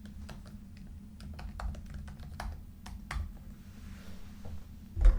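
Irregular sharp plastic clicks and taps of hands handling and turning a VTech Turn and Learn Driver baby toy, with a louder thump near the end.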